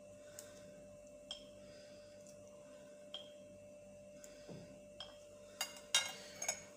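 Scattered faint clinks of a drinking glass being handled, then a louder run of scraping and clinking near the end.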